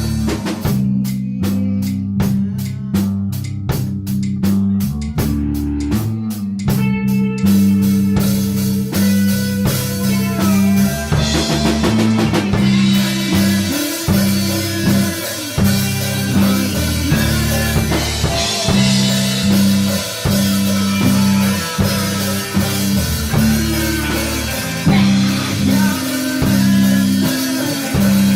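Rock music with electric guitar, bass and drum kit: a sparse, ticking rhythmic opening for about seven seconds, then the full band comes in.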